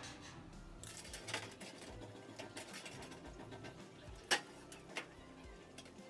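Faint handling noises of a tape measure being pulled out and laid along a perforated sheet-metal cable tray, with light scuffs and knocks and one sharp click a little over four seconds in.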